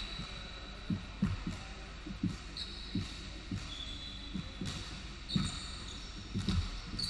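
A basketball bouncing on a hardwood gym floor in irregular dribbles, roughly two bounces a second. Sneakers squeak briefly on the floor several times, from about two and a half seconds in.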